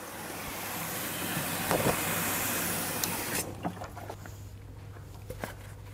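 Water from a garden hose running into the plastic tank of a motorised backpack sprayer: a steady splashing hiss that grows slightly louder, then stops suddenly about three and a half seconds in. A few faint clicks follow.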